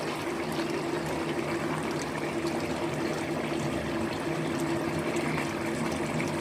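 Chicken wings simmering in a thick sauce in a wok: a steady bubbling hiss with many small pops, over a steady low hum.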